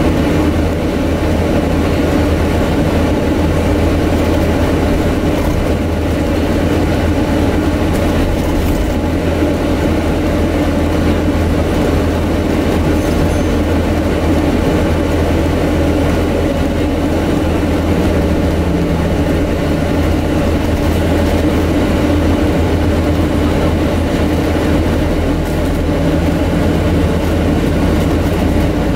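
Steady drone inside a moving Scania N250UD double-decker bus, dominated by the air-conditioning unit, which all but drowns out the engine, with a low hum of the running bus beneath.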